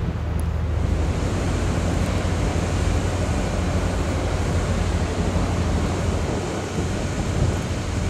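Blizzard wind blowing across the camera microphone: a steady rushing noise with a low rumble.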